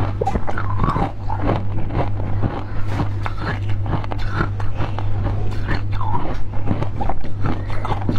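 Close-miked chewing and biting sounds: wet mouth noises and many small clicks as a powder-coated candied fruit ball on a skewer is eaten, over a steady low hum.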